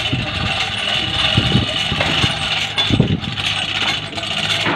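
An engine running steadily at idle in the background, with a couple of brief low bumps about one and a half and three seconds in.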